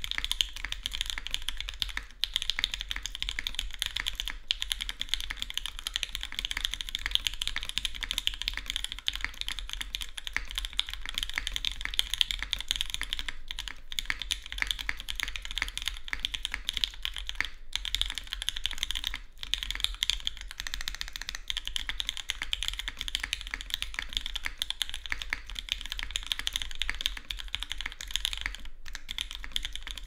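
Fast, continuous typing on a Dalco 959 Mini custom mechanical keyboard with lubed and filmed Gateron Minks switches, GMK keycaps and an o-ring-mounted aluminium plate with no foam. The keystrokes run together in a dense stream of clacks with only a few short pauses.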